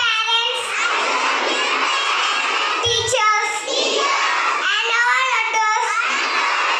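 A large group of children's voices chanting together in unison, many young voices overlapping in one chorus.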